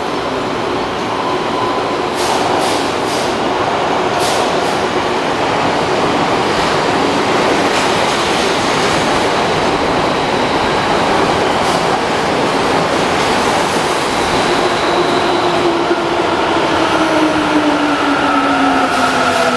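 Toyo Rapid Railway 2000 series electric train running in an underground station, with steady wheel and track rumble and a few sharp clicks. From about three-quarters of the way in, a motor whine of several tones falls steadily in pitch as the train slows.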